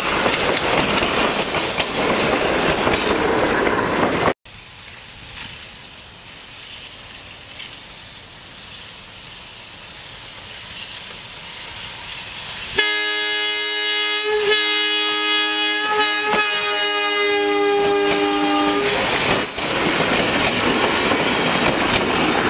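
Electric interurban cars running past close by, their wheels loud on the rails, cut off suddenly about four seconds in. After a quieter stretch, an approaching interurban car sounds its multi-tone air horn in the grade-crossing pattern, two long blasts, a short one and a long one. Loud wheel noise follows as it passes.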